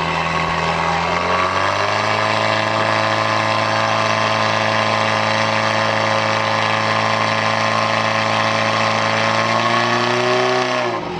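Portable fire pump's engine revving up about a second and a half in, then running steadily at high speed while it pumps water through the hose lines to the spray nozzles. It eases off right at the end.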